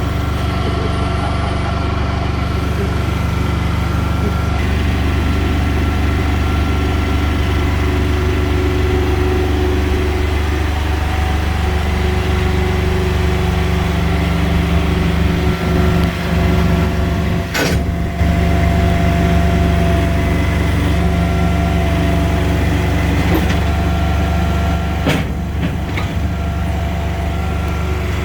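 Mini excavator engine running steadily under hydraulic load, its whine stepping up and down in pitch as the controls are worked, with two sharp metallic clanks, one a little past halfway and one near the end.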